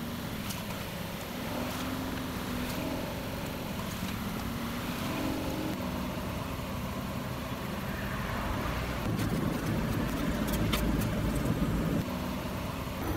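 A Volkswagen car's engine idling with a steady low rumble. Near the end, aluminium foil crinkles in a few sharp clicks as a flattened foil packet is pulled from beside the tyre and opened.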